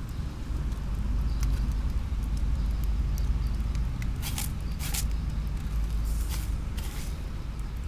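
Plastic colour-sorting machine running with a steady low hum. Short hissing bursts come in the second half, four or five of them.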